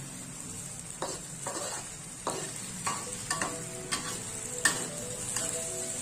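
Tofu frying in hot oil in a pan with a steady sizzle, while a metal spatula stirs and knocks against the pan every half second or so.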